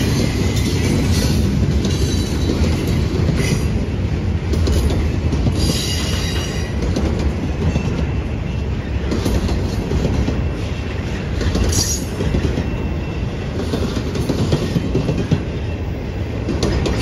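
Freight train cars rolling past close by: a steady low rumble of steel wheels on rail with clacking over the rail joints. Brief high wheel squeals come through about six seconds in and again near twelve seconds.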